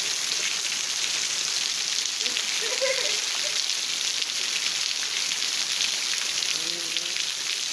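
Steady rain falling on leafy trees and the ground: an even hiss with a fine patter of drops.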